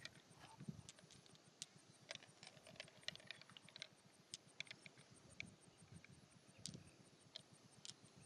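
Faint, irregular light clicks and taps, with a fast, even insect-like chirping pulse high in the background.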